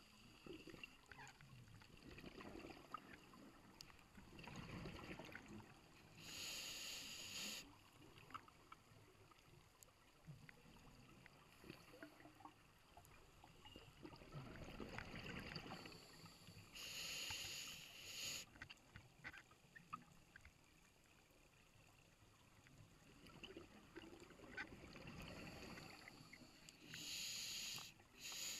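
Scuba diver breathing through a regulator underwater, about one slow breath every ten seconds, three in all. Each breath is a low bubbling swell followed by a sharper hiss of about a second and a half.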